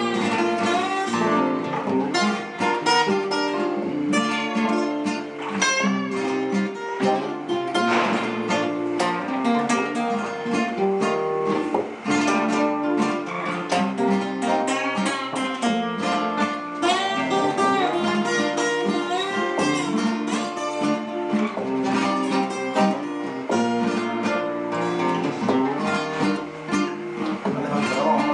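Several acoustic guitars playing an instrumental break together, strummed chords with picked melody notes over them.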